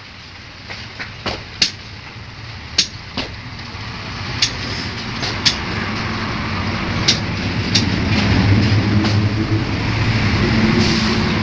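A motor vehicle engine running, growing steadily louder over several seconds and then holding, with scattered sharp clicks and knocks throughout.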